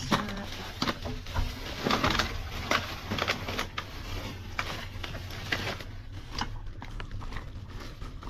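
Thin plastic bags rustling and crinkling in short, irregular bursts as a hand rummages through them and the packaged items inside, over a steady low hum.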